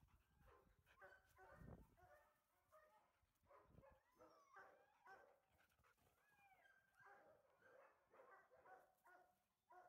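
Faint dogs barking and whining, on and off.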